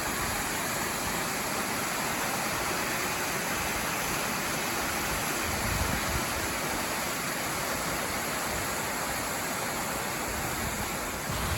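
A 62-foot waterfall pouring into its pool: a steady, even rush of falling water.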